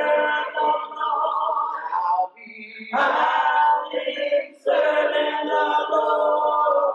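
A small gospel choir of men and women singing a cappella in harmony, holding long notes, with two short breaks between phrases.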